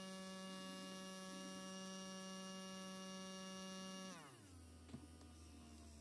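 Arçelik washing-machine motor running with a steady whine, its pitch dropping quickly about four seconds in as it slows to a lower, quieter speed; a short click follows.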